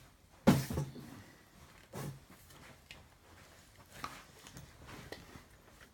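A person moving about and walking away: a sharp thump about half a second in, then a few fainter knocks and shuffles.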